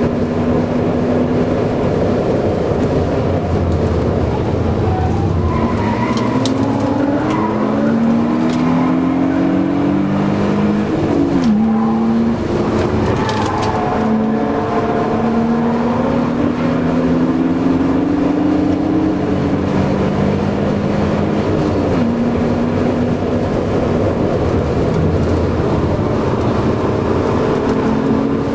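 A BMW Z3 2.8 Roadster's straight-six engine heard from inside the cabin on track, with the revs climbing in several long rises and dropping back between them as the car accelerates, shifts and slows for corners. Steady road and wind noise runs underneath.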